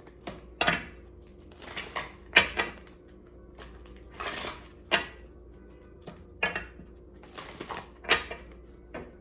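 A deck of tarot cards being shuffled by hand: irregular bursts of cards sliding and slapping together, about one a second, some with sharp clicks.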